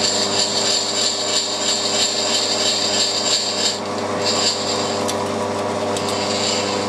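Milling machine running with its spindle turning an edge finder: a steady hum made of several even tones. A higher hiss rides over it for the first three and a half seconds and briefly again just after four seconds while the table is run across to the other side of the workpiece.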